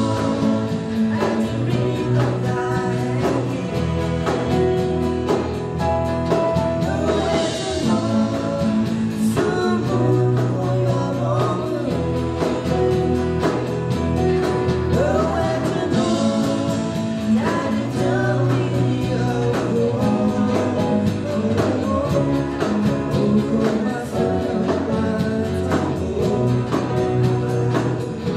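A woman singing a song through a microphone and PA, accompanied by an electronic keyboard playing sustained chords and a bass line.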